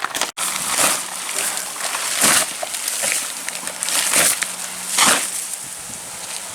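Old shingles being torn off a roof deck with tear-off shovels: about four rasping scrapes over a faint steady hum.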